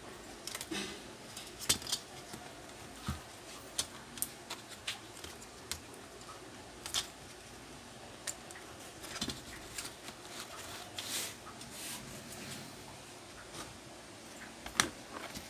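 Scattered clicks, taps and light rattles of laptop parts handled by hand: the motherboard and its power-jack cable lifted out of the plastic chassis and set down, with one sharper knock near the end.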